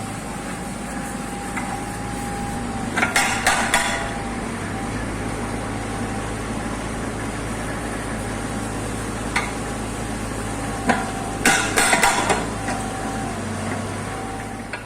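Kubota U50 mini excavator's diesel engine running steadily with a hydraulic whine, and its hydraulic breaker giving two short bursts of metallic hammering, about three seconds in and again near the end, with a few single clanks between.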